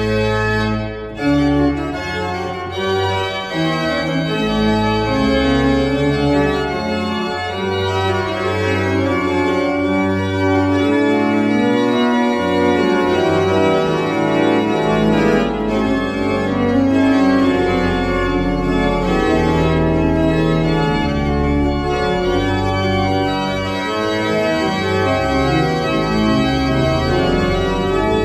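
Pipe organ, a 1910 Rieger rebuilt as a two-manual baroque-type instrument, being played in a continuous improvisation: held chords over low bass notes, with the notes above changing steadily.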